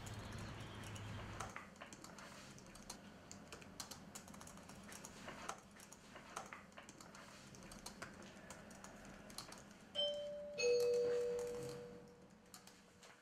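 Laptop keyboard typing, irregular key clicks. About ten seconds in, a two-note doorbell chime: a short first note, then a lower, louder second note that rings out and fades over a couple of seconds.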